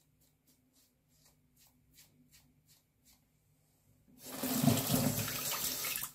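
Faint short scraping strokes of a five-blade Bic Flex 5 Hybrid razor through lathered stubble, about three a second, shaving against the grain. About four seconds in, a tap starts running loudly into the sink and keeps running.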